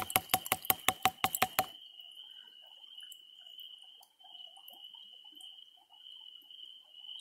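A steady, high-pitched insect drone. A rapid run of sharp knocks, about six a second, stops about one and a half seconds in.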